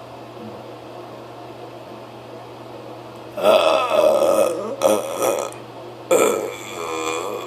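A person forcing out loud, long burps on purpose, three in a row, beginning about three seconds in; the last one carries a clear pitched tone. A low steady hum sits underneath.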